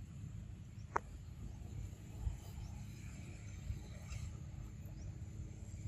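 Quiet outdoor forest ambience: a low rumble with faint insect chirring, and one sharp click about a second in.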